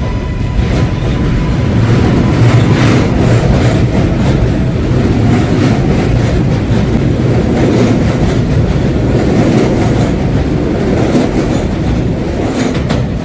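Subway train running past at close range: a loud, steady rumble that builds over the first couple of seconds, with rail-joint clicks all through it.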